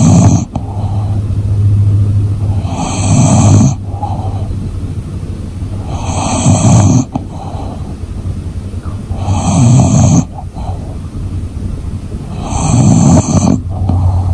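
English bulldog snoring in her sleep: a loud snore about every three seconds, four times over, each with a high whistling edge, with a lower steady rumble of breath between them.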